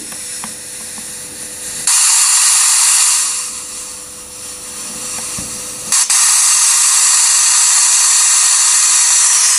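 Steam-locomotive sound generator inside an HO-scale freight wagon, playing through its small speaker and set off by the wagon being pushed along the track: loud steam hiss. The first burst comes about two seconds in and fades after a second or so. The second starts sharply about six seconds in and keeps going.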